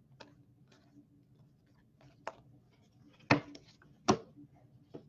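Trading cards being handled and set down on a hard tabletop: a handful of sharp taps and clicks, the two loudest about three and four seconds in.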